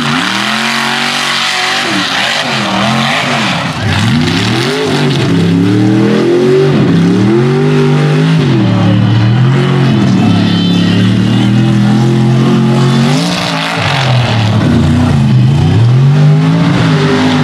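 Lifted mud-bog trucks' engines revving hard, pitch sweeping up and falling off again and again as the trucks spin their tires through mud and over dirt jumps, with a haze of tire and mud spray noise underneath.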